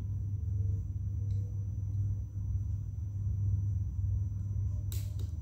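Steady low background rumble, with one sharp click about five seconds in as plastic Lego Technic pieces are handled.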